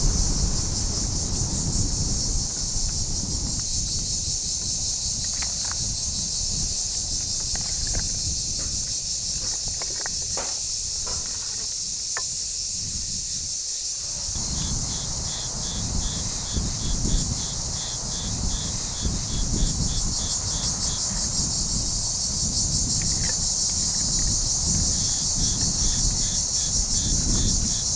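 Steady, high-pitched insect chorus, with a fast, evenly pulsing chirp joining in about halfway through and again near the end, over a low rumble. A few light clicks in the middle as garlic cloves and onion pieces are laid into the clay dish.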